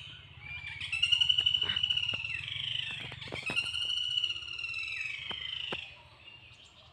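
A bird gives two long, shrill trilling calls, each lasting about two to two and a half seconds, the second one falling away at its end.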